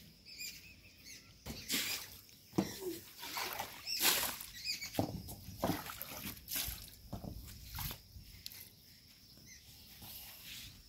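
Long-handled broom sweeping water and mud across a wet tiled floor: a series of irregular swishing, splashing strokes.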